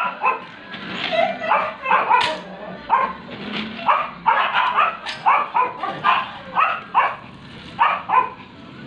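Several dogs barking and yipping in quick short calls, about two a second throughout, as they wait for bowls of kibble at feeding time.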